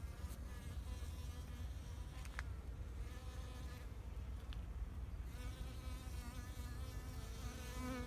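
Bees buzzing as they fly among flowers, a wavering drone that rises and falls in pitch and grows stronger in the second half, over a low rumble. A brief sharp high click about two and a half seconds in.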